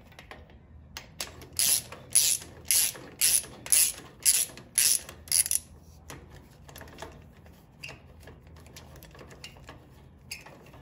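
Ratchet wrench clicking in a steady run of strokes, about two a second, unscrewing the brake adjusting rod on a Farmall 450 tractor. The ratcheting stops about halfway through, leaving faint ticks and handling noise.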